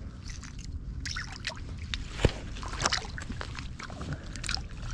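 Water sloshing and splashing in a small ice-fishing hole as a hooked fish is worked up through it, over a steady low rumble. Scattered clicks throughout, the loudest a sharp knock about two seconds in.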